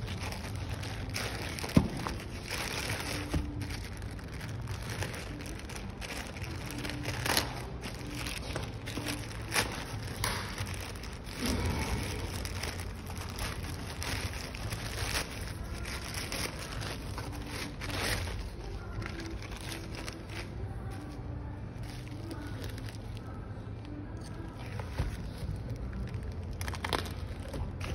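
Plastic shipping bags crinkling and rustling in irregular bursts as they are handled and opened, with scattered crackles and one sharp tap about two seconds in.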